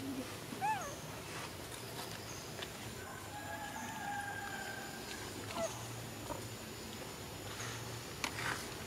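A rooster crows once: a long, drawn-out call that starts about three seconds in and lasts about a second and a half. Earlier, about a second in, there is a short rising-and-falling call, and faint high ticks run through the background.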